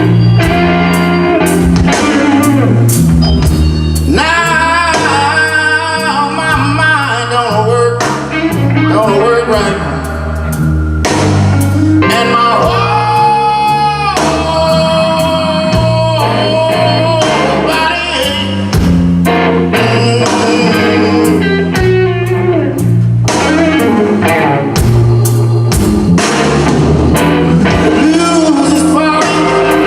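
A blues band playing live over a steady bass line and drums, with bending, wavering lead lines on top.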